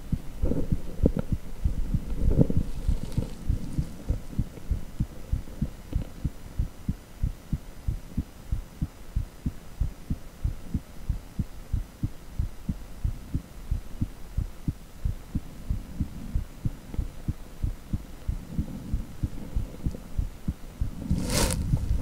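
Heartbeat sound from a cardiac ultrasound (echocardiogram): fast, steady, rhythmic low pulsing, louder in the first few seconds. A single sharp click comes about half a second before the end.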